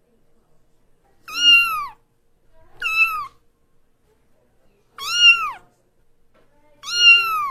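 Cat meowing four times, evenly spaced, each call a short meow that rises and falls in pitch.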